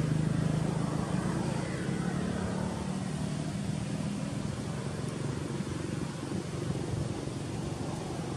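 A motor vehicle's engine running steadily and growing fainter over the first few seconds, with a low drone and outdoor background noise.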